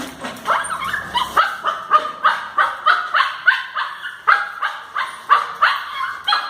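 A dog whining and yelping over and over in short, high cries, about three a second, each falling in pitch: an anxious, overexcited dog.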